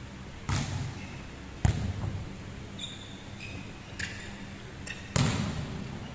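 A volleyball being hit or bouncing: three sharp thuds, about half a second, a second and a half and five seconds in, each echoing in a large sports hall. Between them come a few short, high squeaks of sneakers on the wooden court.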